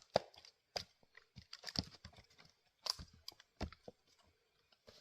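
Scattered light knocks, clicks and crunches of split firewood being handled and moved between axe strikes.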